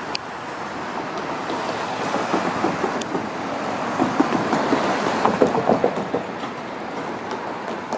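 Road traffic at a level crossing: a passing vehicle's noise swells to a peak about halfway through, with a quick run of knocks, then fades.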